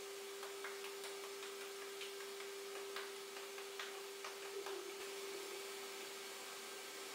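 Electric mixer on its stand running steadily with a low hum as it beats cake batter in a transparent bowl. A run of light clicks and taps comes over the first five seconds.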